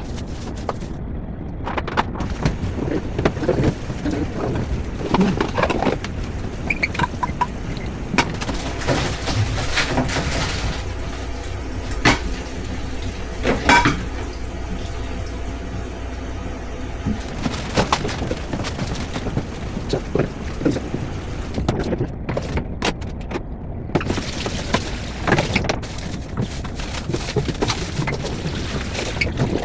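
A pot and a frying pan being handled on a stovetop: a string of irregular knocks, clinks and clatter over a steady low hum.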